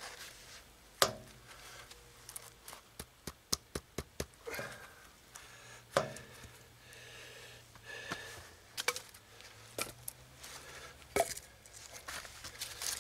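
Dry dead sticks knocking and clattering against each other and the logs as they are laid crosswise into a fire lay. There are many light clicks and a few sharper knocks, the loudest about a second in, about six seconds in and near the end.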